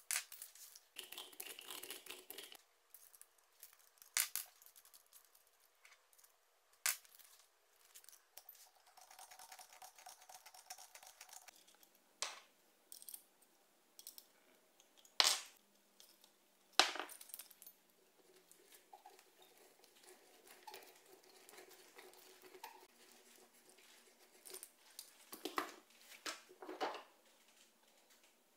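Faint, scattered clicks and knocks of small metal parts being handled: drill bits being changed in a hand drill's chuck and set down on a wooden bench, with a few louder single knocks.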